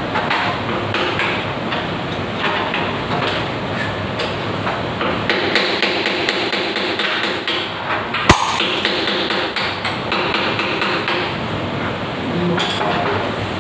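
Hammer tapping a chisel against a broken threaded stub lodged inside a wall water-supply fitting, chipping it out: a steady run of light metallic taps, with one sharp louder strike about eight seconds in.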